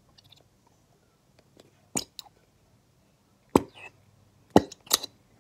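Handling of a plastic glue bottle as glue is poured into a bowl: a handful of sharp clicks and knocks, about five in all, the loudest two in the second half.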